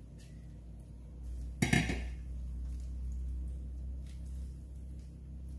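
A glass mixing bowl set down with a single clunk about a second and a half in, followed by faint soft sounds of raw prawns being moved around by hand on a paper-lined baking tray. A low steady hum runs underneath.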